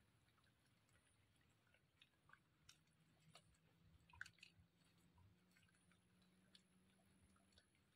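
Near silence with faint, scattered clicks and crunches of a wild boar piglet chewing green leaves, the loudest click about four seconds in.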